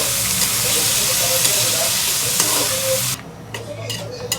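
Food sizzling in a hot frying pan: a loud, steady sizzle that cuts off abruptly about three seconds in, followed by a few light clicks and knocks.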